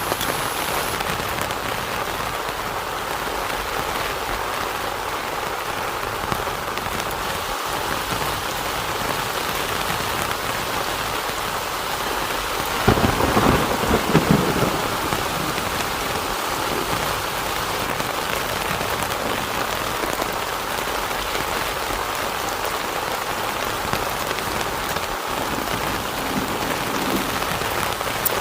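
Heavy rain falling steadily on a tent, with a short, loud crack and rumble of thunder about halfway through.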